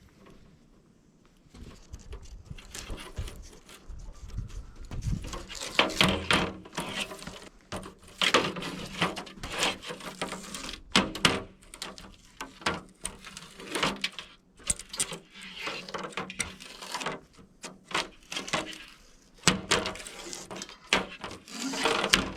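Rubber spline being peeled out of a window screen frame's channel and the old screen mesh handled, with irregular scraping, rustling and clicks.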